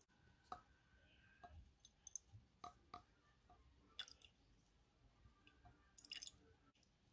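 Near silence with a few faint, scattered clicks and ticks from handling the syringe and glass jar as iodine solution is dripped in.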